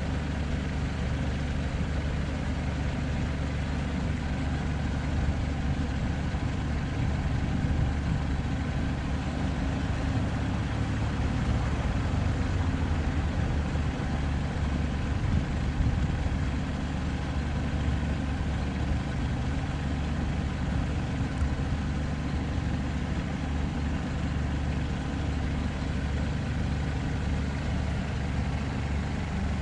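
An engine idling steadily, a low even hum that holds the same speed throughout.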